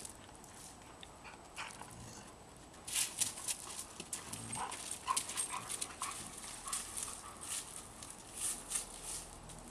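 Two dogs tussling over a stick: quick scuffles and crunches of paws on dry leaves and dirt, busiest from about three seconds in, with a run of short dog whines in the middle.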